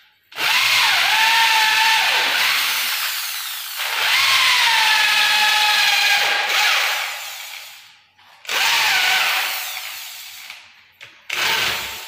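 Corded electric drill boring holes into wooden door-frame boards, run in four bursts: two of about three seconds each, then two shorter ones. The motor's whine winds down after each.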